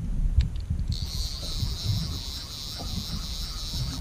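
Multiplier fishing reel being wound, a steady high whirring that starts suddenly about a second in, over a low rumble of wind on the microphone.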